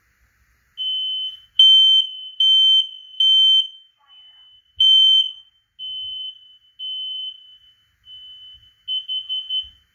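Smoke alarm sounding under test: a single high-pitched beep repeated in short bursts of about half a second, some loud and some fainter, starting about a second in, with a quick stuttering run of beeps near the end.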